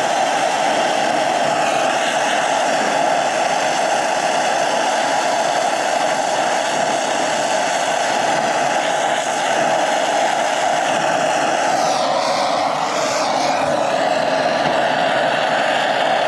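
Brazing torch flame hissing steadily while a copper refrigerant line joint on an evaporator coil is heated and brazing rod is fed in. The hiss wavers briefly about twelve seconds in.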